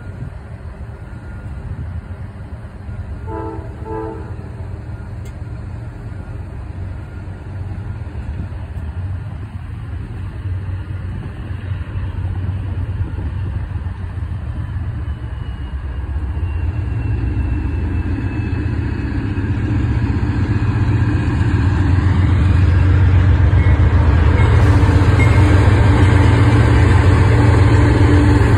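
Norfolk Southern diesel freight locomotives approaching: a short horn blast sounds a few seconds in. Then the deep engine rumble grows steadily louder as the locomotives come close and pass.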